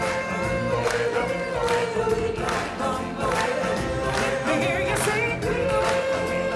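Stage-show music: a choir singing long held notes over percussion.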